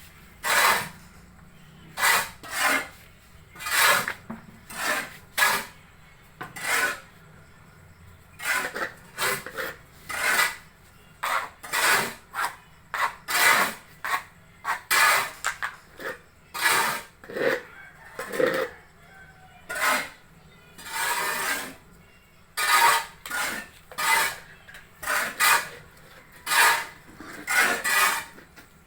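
Sawdust mushroom substrate being worked by hand: rough scraping strokes, about one a second, with a few short pauses.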